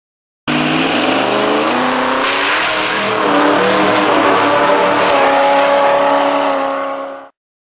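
Twin-turbocharged Duramax diesel V8 drag truck at full throttle down the strip, its pitch rising over the first few seconds, then holding steady as it pulls away. The sound cuts off suddenly near the end.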